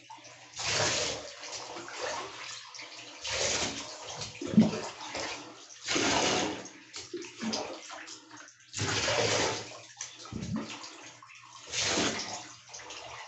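Water poured from a cup over a dog standing in a bathtub, splashing down into the tub water: five pours, each under a second, about three seconds apart.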